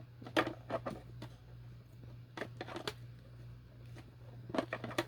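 Paper and craft materials being handled on a desk: scattered short rustles and taps in small clusters, over a steady low hum.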